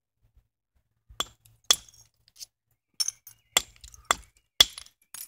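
Antler billet striking the edge of a flint handaxe: about six sharp clinking blows, starting about a second in and spaced half a second to a second apart, with a couple of lighter taps between them. This is soft-hammer percussion knocking flakes off to bring the edge to the centre line.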